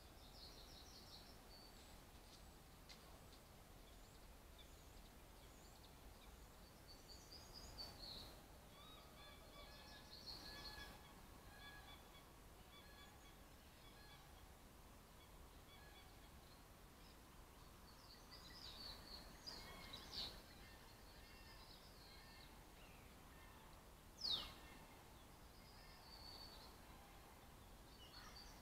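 Faint woodland birdsong over a steady hiss: scattered short, high song phrases and calls, the loudest a single quick downward-sliding whistle late on.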